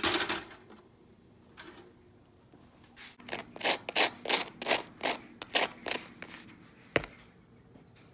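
A table knife scraping a soft spread across a slice of crisp toast in about ten quick strokes. A sharp clunk comes at the start, and a single click near the end.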